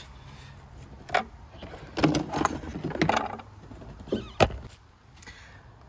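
A car battery being lifted out of its tray in the engine bay: its plastic case and handle knock and scrape against the surrounding trim, with a burst of knocks and scraping about two to three seconds in and one sharp knock about four and a half seconds in.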